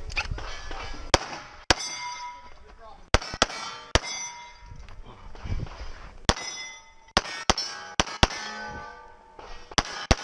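A dozen or so 9mm pistol shots from a CZ Shadow 2, fired in quick pairs and short strings with brief pauses between them. Each shot is followed by the clang and lingering ring of a steel target being hit.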